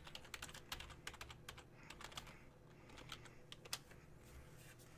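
Faint computer keyboard typing: quick, irregular key clicks that thin out near the end.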